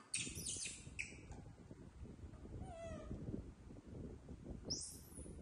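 Baby macaques giving short, high-pitched squeals, a cluster of them just after the start and one more near the end. Under them is a low, continuous crackling and scraping of a knife working into a fibrous fruit husk in a wicker basket.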